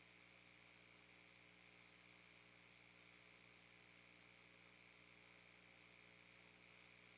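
Near silence: a faint, steady electrical hum and hiss from the sound system, with nothing else heard.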